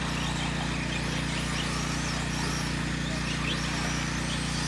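Electric RC short-course trucks racing, their motors giving faint rising and falling whines as they speed up and slow down, over a steady low hum.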